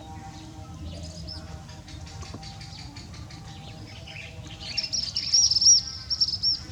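High-pitched chirping: a quick run of short chirps that grows loudest over the last couple of seconds, over a low steady hum.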